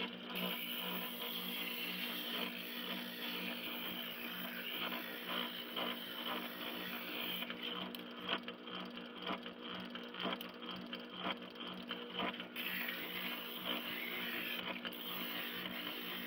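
Ridgid oscillating spindle sander running with a steady motor hum. The jig piece is pressed against the spinning sanding drum to smooth its curved edge, giving an uneven scratchy grinding over the hum.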